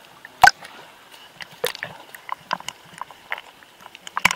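Small sea-water splashes and slaps right at a camera held at the water's surface: irregular clicks and splashes, with a sharp knock about half a second in and another near the end.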